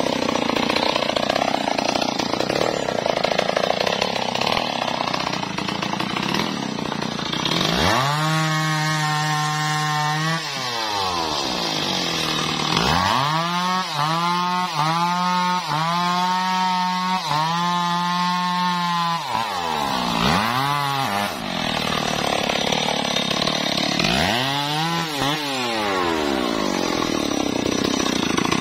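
Stihl MS 381 two-stroke chainsaw cutting into a mahogany log for the first several seconds. Then it revs freely: one held high rev, a run of quick throttle blips about once a second, and more revs rising and falling near the end.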